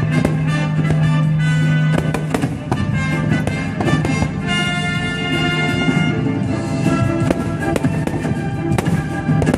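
Orchestral music with brass, mixed with the repeated bangs and crackle of aerial fireworks shells bursting.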